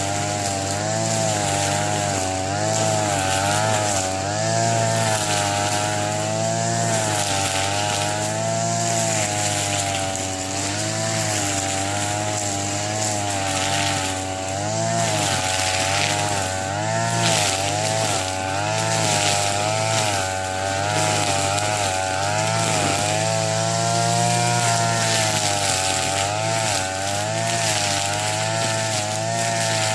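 Two-stroke TB33 brush cutter running at high speed while cutting thick grass, its engine pitch dipping and rising over and over as the cutting head bites into the grass and frees up again.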